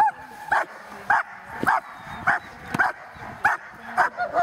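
German Shepherd barking in a steady, even rhythm, a little under two barks a second: drive barking at the helper during protection training.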